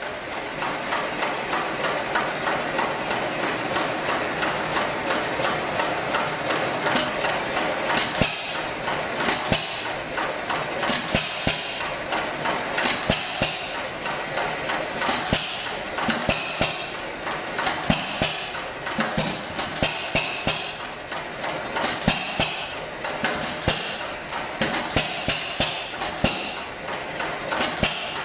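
Hit-and-miss stationary engine running, with a rapid, rhythmic mechanical clicking and knocking. From about eight seconds in, short bursts of hiss come every second or two.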